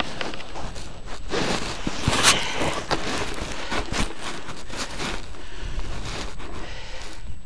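Skis sliding through deep powder snow: an uneven rushing hiss with a sharper swish about two seconds in, over a low rumble of wind on the microphone.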